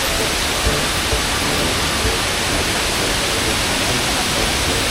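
Shiraito Falls' wide curtain of thin streams pouring down the cliff: a steady, even rush of water.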